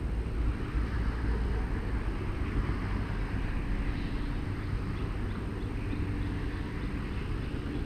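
Steady low rumble of road traffic, with a faint even hum underneath.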